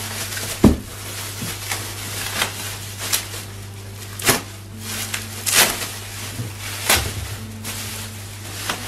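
Plastic bag and bubble wrap rustling and crinkling in short sharp strokes about a second apart as a wrapped item is pulled out of a cardboard box and cut open, with a couple of low knocks, one near the start and one about seven seconds in.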